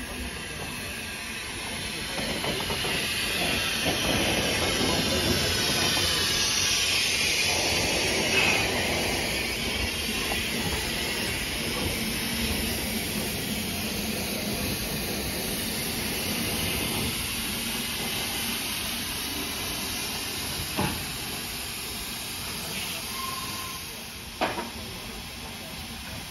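BR Standard Class 4 4-6-0 steam locomotive 75069 standing with steam hissing from it, louder in the first half and easing after. Two sharp knocks near the end.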